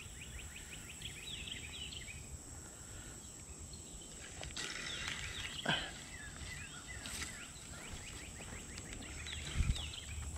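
Songbirds singing in repeated phrases of quick, high chirps, coming in three spells, over a steady high-pitched tone and outdoor background noise. A single low bump comes near the end.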